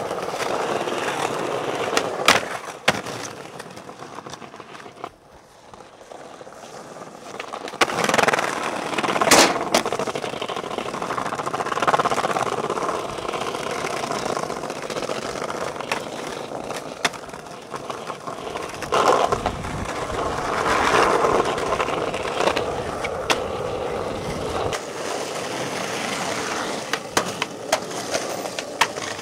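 Skateboard wheels rolling over paving, broken again and again by sharp clacks of the board snapping and landing. There is a quieter stretch about five seconds in.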